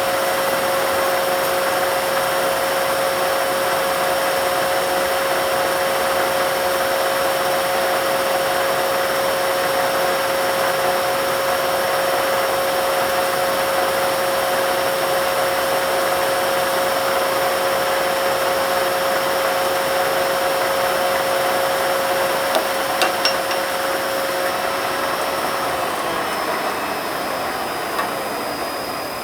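Eaton Fuller RTO-14608LL truck transmission spinning on a test dyno: a loud, steady whirring with a constant whine. A few clicks come near the end, then the whine stops and the whirring winds down.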